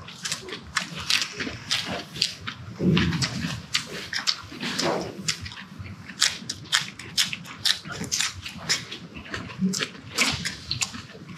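People chewing and smacking their lips while eating pork and kimchi stir-fry: a busy, irregular run of short clicks and smacks.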